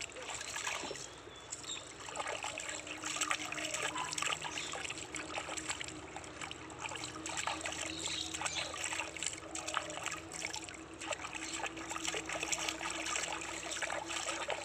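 Water splashing and trickling in a metal basin as hands scoop and pour it over a small puppy being bathed, in a constant irregular run of small splashes.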